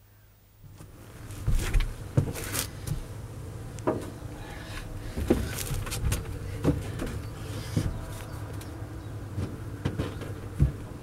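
Scattered knocks and footsteps on a narrowboat's rear deck and back doors as someone moves in and out of the doorway, over a steady low hum. The first knocks come about a second and a half in.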